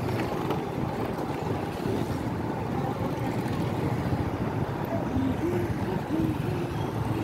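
Wind buffeting the microphone over the steady engine and road noise of a moving motor two-wheeler in street traffic.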